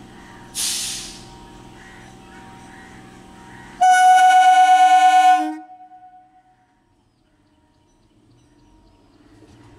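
The horn of an old-model Indian Railways EMU train sounds one loud, steady, high-pitched blast lasting about a second and a half. A short burst of hissing air comes about half a second in, over a low hum from the standing train.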